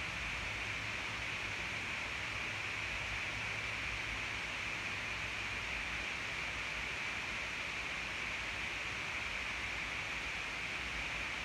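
Steady, even hiss with no other sound: the room's background noise as picked up by the recording device.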